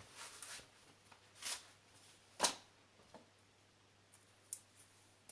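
Adhesive tape being handled and torn off: a short rustle and hiss, then a sharp click about two and a half seconds in, followed by a few lighter clicks.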